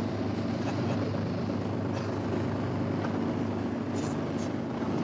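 A boat's engine running steadily: a low, even drone with a light hiss over it.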